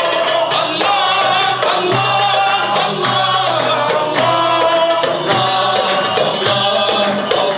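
Men singing a Moroccan patriotic nasheed through microphones, backed by a hand drum, with the crowd clapping along in a steady beat.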